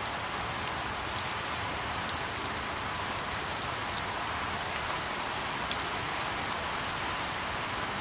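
Steady rain: an even hiss with single drops ticking sharply now and then.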